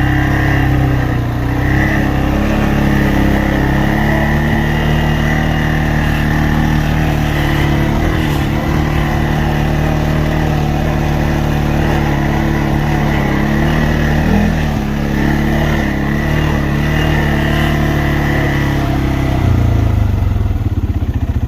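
A motor vehicle's engine running steadily at constant speed, then dropping to a pulsing idle near the end.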